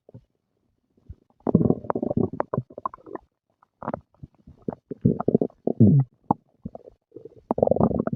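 A person's stomach gurgling and growling after breakfast, in irregular bursts. The first second is quiet, bubbly gurgles start about a second and a half in, and one growl falls in pitch around the middle. A longer run of gurgling comes near the end.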